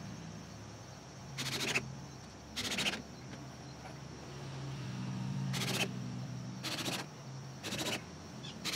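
Power tool fastening a plywood deck to its wooden frame, in about six short bursts of under half a second each, spaced irregularly, over a low steady hum.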